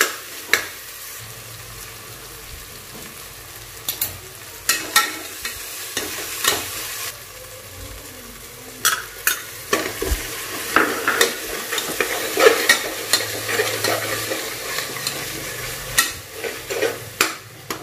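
Metal spatula scraping and knocking against an aluminium pressure cooker while onion, tomato and coriander fry in oil with a steady sizzle. The stirring stops for a moment about seven seconds in, then resumes with repeated scrapes.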